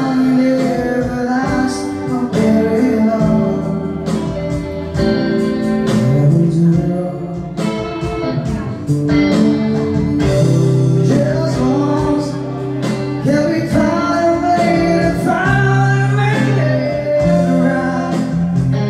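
Live band music: a man singing into a microphone while playing guitar, with the band behind him.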